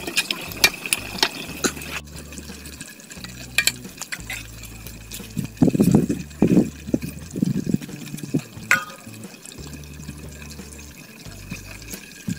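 Hot oil sizzling and crackling around a whole chicken deep-frying in a karahi, with many small pops for the first two seconds. After a sudden cut there is a run of rustling and scuffing about six seconds in, loudest of all, as banana leaves are picked up.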